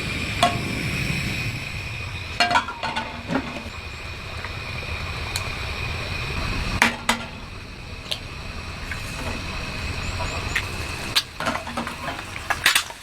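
A dozen or so scattered light clinks and knocks, with a few small clusters about 2.5 s, 7 s and 11 to 13 s in, over a steady low background noise and a faint steady high tone.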